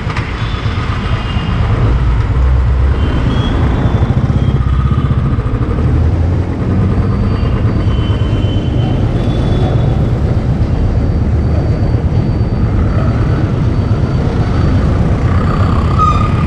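Motorcycle engine running steadily as the bike rides along a road, with the rumble of road and traffic noise around it.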